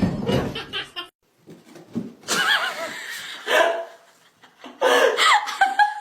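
An animal's pitched, wavering calls in several bursts, with a tight run of sliding calls near the end.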